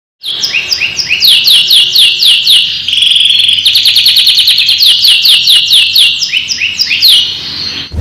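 Domestic canary singing a 'cengkok duit-duit' song: a series of loud falling whistled notes, about four a second, broken by a rapid trill about three seconds in. The song stops just before the end.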